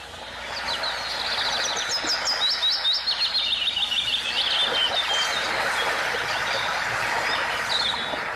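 Birds chirping in quick runs of high notes over a steady outdoor background hiss that fades in over the first second: a recorded ambience sound effect in a radio drama. The chirps are thickest in the first few seconds and scattered after that.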